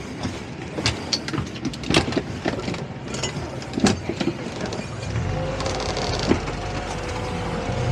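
Knocks and clunks on the deck of a towboat, then about five seconds in the towboat's engines come up under throttle into a steady low drone with a higher whine.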